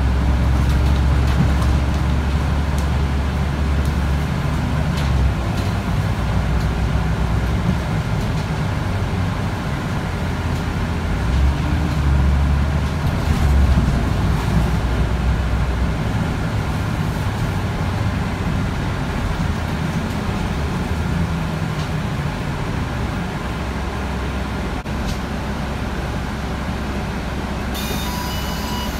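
Mercedes-Benz O405G articulated bus heard from inside the cabin while driving, its diesel engine droning steadily. The drone swells under acceleration early on and again about halfway through. A brief high-pitched sound comes near the end.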